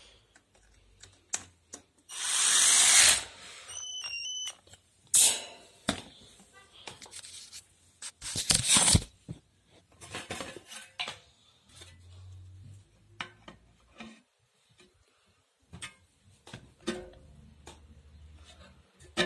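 Handling noises from putting together a floor fan's wire grills and blade: scattered clicks, knocks and rubbing, with loud scraping rushes about two seconds in, briefly at five seconds and again near nine seconds.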